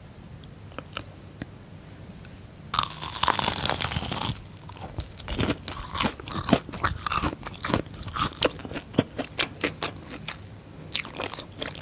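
Biting into a cream cheese ball, its crisp fried crumb coating giving a loud crunch about three seconds in, followed by close-miked chewing with many small, sharp crunches.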